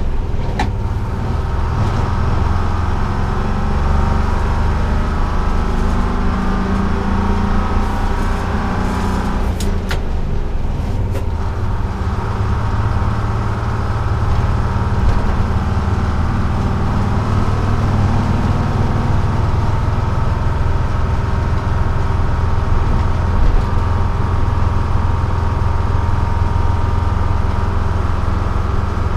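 Detroit Diesel 6-71 two-stroke diesel of a 1948 GMC Silversides bus running under way, heard from inside the cab along with road noise. The engine note drops briefly about ten seconds in, then picks up again.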